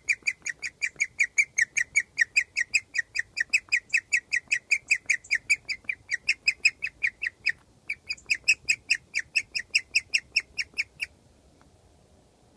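Guinea pig chirping: a fast, even series of short, high bird-like chirps, about five a second, with a brief break midway, stopping shortly before the end. The owner takes this rare chirping as a sign that the guinea pig is very happy.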